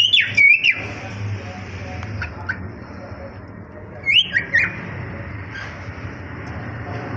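A flock of cockatiels calling. Loud whistled calls that bend up and down come in the first second and again about four seconds in, with quieter short chirps from other birds in between.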